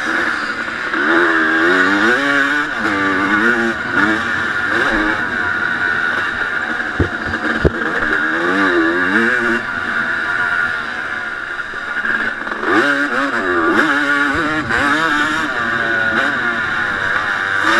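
1989 Honda CR250's single-cylinder two-stroke engine revving up and falling back again and again as the motocross bike is ridden hard, heard close from on board. A couple of sharp knocks about halfway through.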